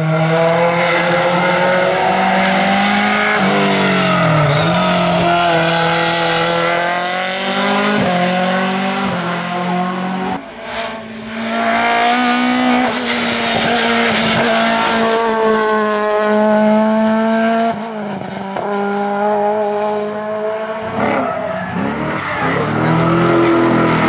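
Hill-climb race cars' engines revving hard through hairpin bends, the pitch climbing and falling again and again with throttle lifts and gear changes, with tyre squeal as the cars slide through the turns.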